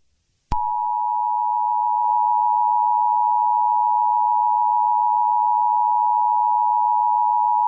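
Emergency Alert System attention signal: a steady two-tone alarm tone that switches on about half a second in and holds unbroken.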